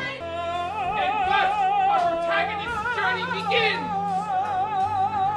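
Musical-theatre singing in operatic style: a high note held with wide vibrato, joined about halfway through by a second voice in harmony, over sustained low accompaniment chords.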